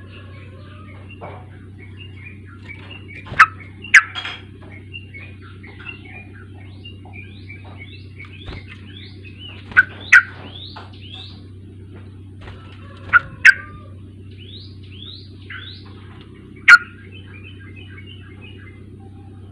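Yellow-vented bulbuls chirping and chattering in quick rising notes, with loud sharp calls in pairs (three pairs, then a single one near the end) over a steady low hum. This is a lure recording used to prompt young captive bulbuls to sing.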